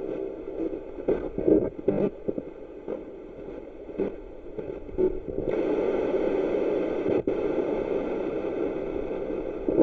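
Spirit box, a radio sweeping rapidly through stations, giving choppy bursts of static and broken radio snatches. About halfway through it settles into a steadier hiss of static, with one brief cut-out.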